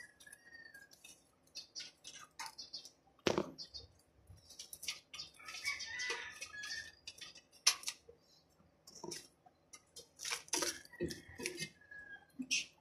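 Tempered glass side panel of a PC case being handled and fitted against the case frame: scattered light clicks and taps, a sharper knock about three seconds in, and a burst of rustling around six seconds.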